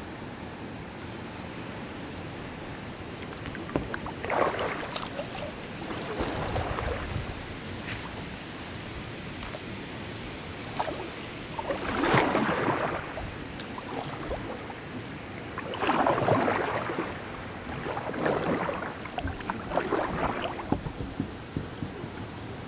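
Kayak paddle strokes: about six splashing swishes of water off the paddle blade at uneven intervals, over a steady background hiss.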